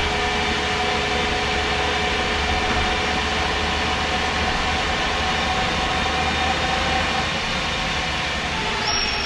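Onboard sound of a MAN SD202 double-decker bus under way: the MAN D2566 MUH diesel and Voith Diwa 851 automatic gearbox run with a steady rumble and several held whining tones. The tones sink slightly near the end, when a thin high whine starts.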